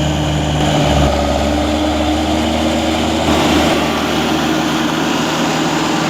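A forestry machine's engine running steadily, its tone shifting slightly about a second in.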